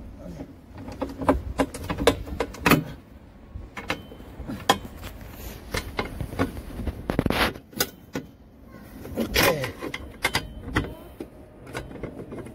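Ratchet and wrench working the bolts of a plastic wheelie bin: irregular metal clicks and knocks, with a longer scrape about seven seconds in.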